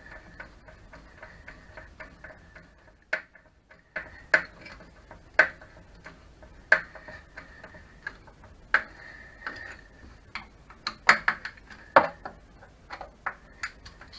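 Sharp, irregular clicks and knocks of hard plastic as the housing of a Tacx Flux smart trainer is pressed and fitted into place, with a quick cluster of them about eleven seconds in.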